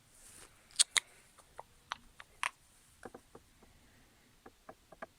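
A series of sharp clicks and light taps: two loud ones just under a second in, a few more over the next second and a half, then a run of fainter, quicker clicks near the end.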